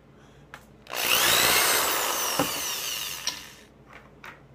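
Craftsman electric drill running and boring through a plastic bottle cap held in a wooden jig. It starts about a second in, runs for nearly three seconds with its whine dropping in pitch, then fades out.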